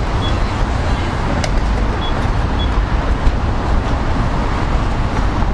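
Steady road-traffic noise with a heavy low rumble and a few faint clicks.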